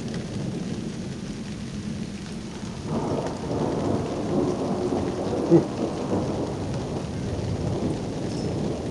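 Summer thunderstorm: steady rain with thunder rumbling, the rumble swelling about three seconds in, and a brief louder thump about halfway through.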